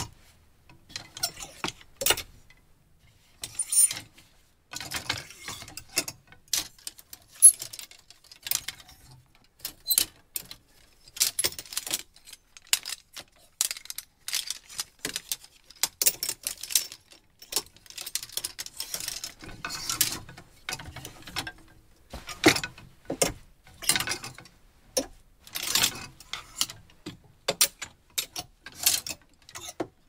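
Clothes hangers in a closet being pushed about, a run of irregular sharp clicks and clatters with short pauses between clusters.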